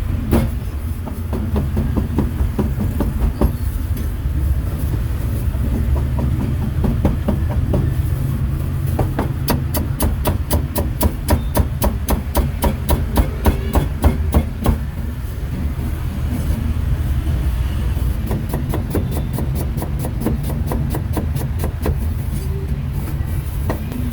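Meat cleaver chopping pork on a chopping block: scattered knocks, then a run of rapid, even chops about four or five a second for several seconds in the middle, over a steady low rumble of street noise.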